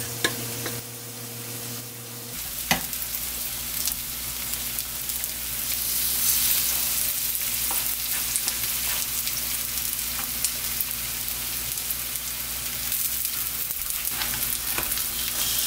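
Batter-coated eggplant slices sizzling as they pan-fry in oil in a nonstick frying pan, the sizzle growing louder about six seconds in. A few sharp clicks sound near the start as more slices are laid in with tongs.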